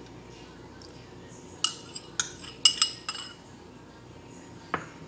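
Metal spoon clinking against a bowl: a quick run of sharp, ringing clinks about one and a half to three seconds in, then a single knock near the end.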